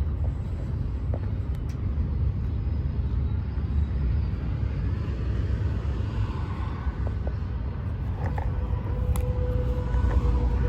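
Steady low rumble, with a faint steady tone coming in about eight seconds in.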